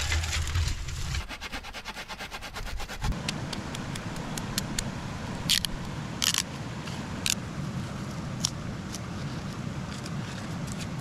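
Knife whittling a split elderberry stem: a run of small clicks with several sharper shaving scrapes as the pithy core is cut out. Dry brush crackles and rustles against a pack in the first few seconds.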